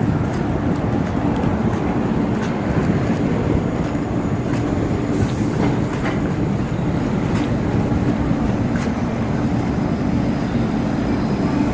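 East Rail Line MLR electric multiple-unit train running on the track: a steady rumble with scattered clicks from the wheels, and a brief hiss about five seconds in.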